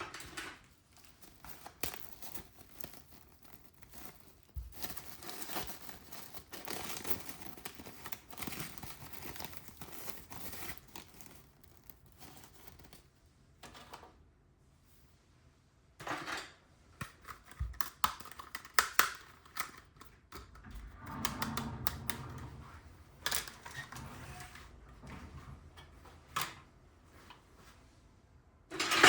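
Close-up handling of a plastic toy set and its packaging: rustling, crinkling and tearing, broken up by sharp plastic clicks and taps.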